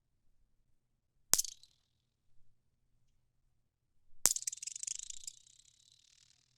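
Singing (rattle) magnets snapping together: one sharp click about a second in, then a second snap a few seconds later that runs on into a high buzzing chatter, fading away over about two seconds.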